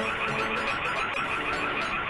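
Background music: a fast, repeating high warble over held low notes that change every half second or so.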